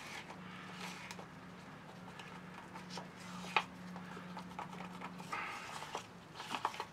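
Wooden stir stick scraping and knocking against a clear plastic cup while mixing teak dust into epoxy into a paste, with a sharp click about three and a half seconds in. A low steady hum runs underneath and stops about five seconds in.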